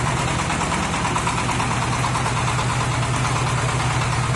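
The small gasoline engine of a portable hydraulic water-well drill rig running steadily, driving the rig's hydraulic pump.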